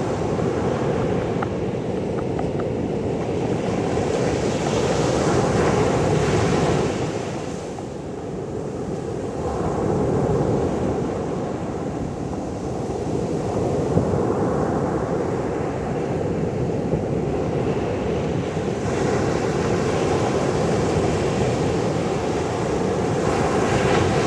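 Sea waves breaking and washing in as a continuous rush of surf, swelling and easing every few seconds, with wind rumbling on the microphone.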